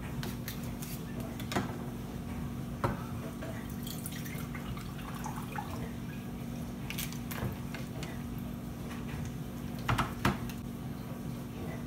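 Packing water draining from a plastic tofu tray, dribbling and dripping into a glass measuring cup, among scattered taps and clicks of the knife and plastic tray. Two sharp knocks about ten seconds in are the loudest sounds, over a low steady hum.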